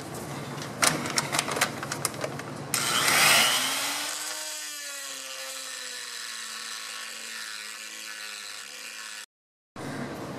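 Heavy-duty quarter-inch grinder grinding away the metal of a steering-column support bracket. A few clicks of the tool being set in place come first. About two and a half seconds in the grinder starts with a loud grinding hiss, and its motor tone then sags slowly in pitch as it cuts.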